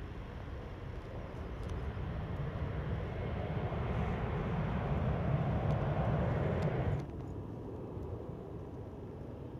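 Jet engine noise of a twin-engine airliner climbing away after takeoff, swelling louder, then cut off abruptly about seven seconds in. A quieter steady jet engine rumble follows, from a Ryanair Boeing 737-800 on the runway.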